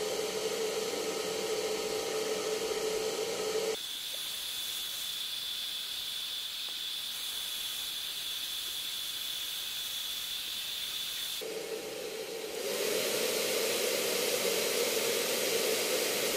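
Hot-air heat blower running steadily: a fan hiss with a low hum. About four seconds in, the hum suddenly gives way to a thin high whine, and the low hum with a stronger hiss comes back abruptly a few seconds before the end.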